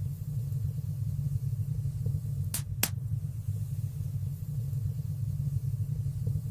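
Wood fire burning in a fireplace with a steady low rumble, and two sharp crackling pops in quick succession about two and a half seconds in.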